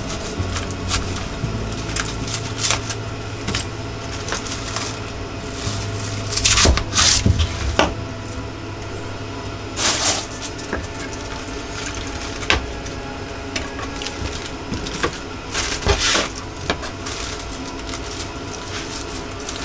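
Kitchen prep work: scattered knocks and clicks on a wooden board and against utensils, with a few louder clatters, over a steady low hum.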